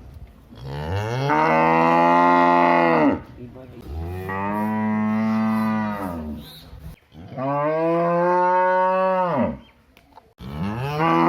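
A cow mooing: four long, drawn-out moos, each rising in pitch at the start and sliding down at the end, the last beginning near the end.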